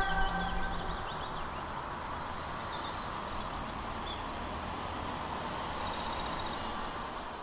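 Outdoor ambience: a steady low hiss with small birds chirping now and then, including a quick trill near the end. The last notes of music die away in the first moment.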